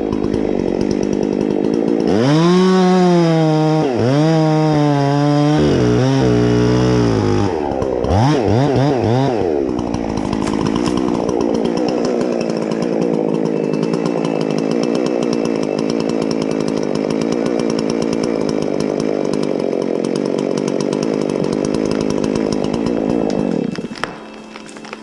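Chainsaw revved up and down several times, then held at high speed in a long steady cut before dropping off near the end.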